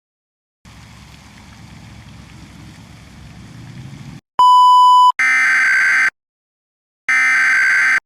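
A mostly low noise swells for about three and a half seconds, then a short steady beep. Then come two buzzy electronic bursts of about a second each, a second apart: the data-header bursts of an Emergency Alert System alert, which open the message.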